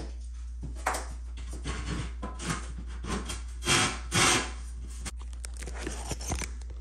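A 12-foot straight edge being set down and slid into place on GoBoard tile backer board: light knocks and rubbing, with two louder short scrapes about four seconds in.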